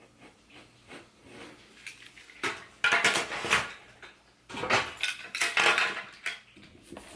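Clattering and scraping of hard objects being handled: faint clicks at first, then two louder bursts of scraping about three and five seconds in.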